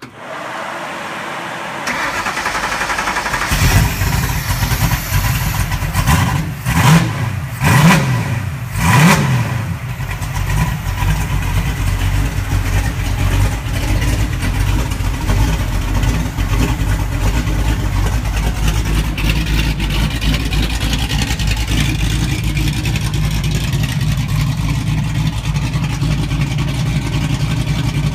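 Stroked small-block Ford 331 V8 on Holley EFI turning over and catching about three and a half seconds in on its first start. It is blipped through several quick revs over the next few seconds, then settles into a steady idle.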